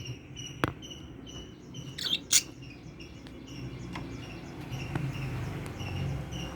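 Lovebirds chirping, short high chirps repeated evenly about three times a second. There is a sharp click under a second in and a louder scratchy rustle about two seconds in.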